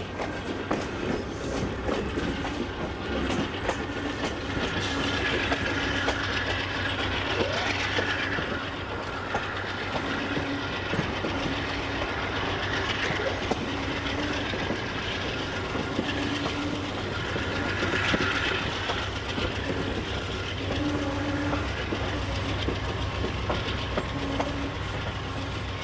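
A train running on the rails: a steady low rumble with clicking and clacking from the wheels, and a few higher-pitched squeals rising over it now and then.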